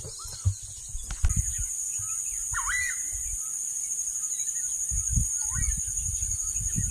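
A steady, high-pitched insect chorus in marshland, with a few short bird calls, the clearest about two and a half seconds in. Low bumps and a couple of sharp clicks from the moving camera lie underneath.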